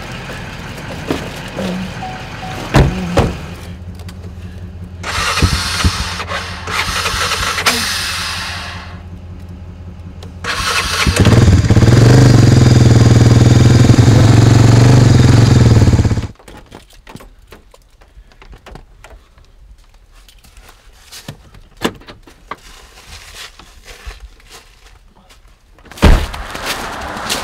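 ATV engine running loud and steady for about five seconds, then cutting off abruptly. Before it, a vehicle engine idles low; after it come quiet scattered clicks and a single thump near the end.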